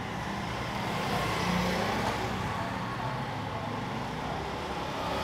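Steady road traffic: vehicle engines running along the street, with a low hum under an even wash of noise.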